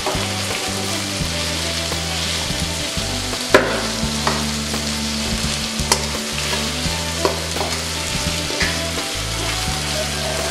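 Sliced chilies, shallots and tomato sizzling in hot oil in a nonstick wok while a wooden spatula stir-fries them, with a few sharp knocks of the spatula against the pan.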